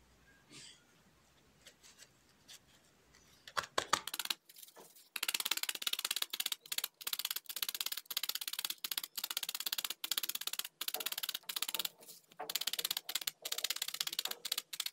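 Felting needle stabbing rapidly through loose wool roving into a foam pad: quick runs of crisp, scratchy pokes with short pauses between runs. It starts about four seconds in after a quiet stretch of faint handling sounds, while the first thin layer of wool is being tacked down.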